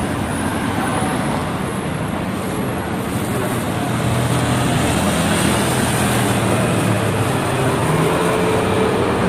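City road traffic: a car drives past close by, over a steady rush of traffic noise.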